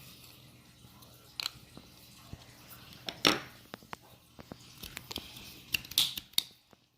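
Small plastic clicks and knocks as the toy X-Wing's plastic parts are handled and fitted together during reassembly, with a couple of louder knocks among lighter taps.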